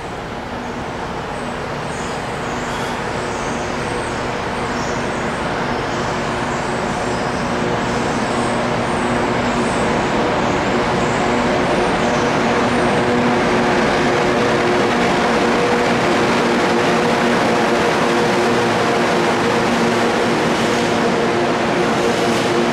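Class 92 electric locomotive drawing a freight train slowly past, its traction equipment giving a steady hum of several held tones over the rumble of the train. It grows louder as the locomotive comes closer.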